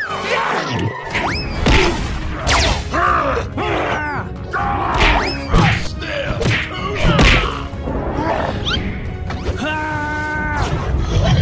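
Cartoon fight soundtrack: background music under repeated whacks and thuds, with short swooping cartoon cries and squeaks. A steady held tone sounds for about a second near the end.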